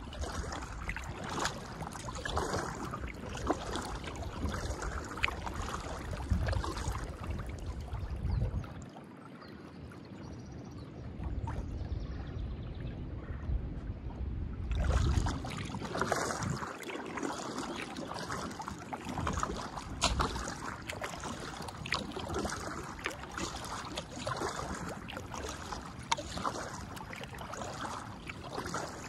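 Kayak paddle strokes splashing and dripping, with water lapping at the hull. The splashing drops to a quieter lull for several seconds about a third of the way in, then picks up again.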